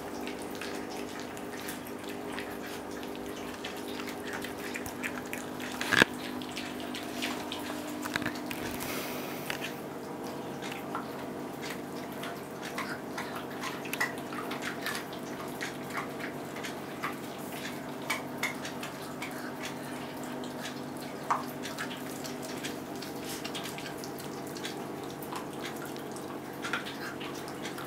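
Dogs and a cat gnawing raw oxtail bones: scattered wet clicks and crunches of teeth on bone, with one sharper crack about six seconds in, over a steady low hum.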